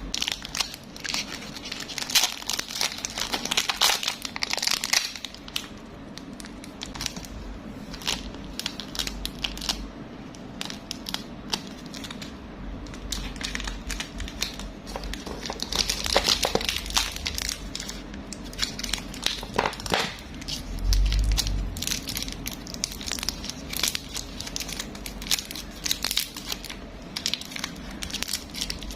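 Plastic candy and toy packaging crinkling and tearing as it is handled and opened, a dense run of crackles and rustles, with a dull bump about two-thirds of the way through.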